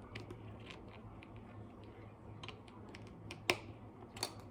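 Small plastic building-brick pieces clicking and tapping as they are handled and pressed together, a scatter of light ticks with two louder clicks near the end.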